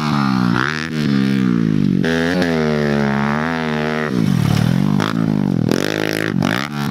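Fuel-injected Kawasaki KLX110 pit bike, a small single-cylinder four-stroke with a race head and aftermarket exhaust, revving up and down as it is ridden around a dirt track. In the second half the engine note falls low and climbs again twice.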